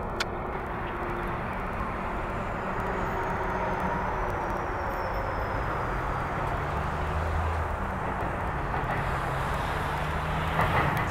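Double-stack container train's well cars rolling along the rails as the end of the train passes and moves away: a steady rumble of wheels on track. A single sharp click comes just after the start.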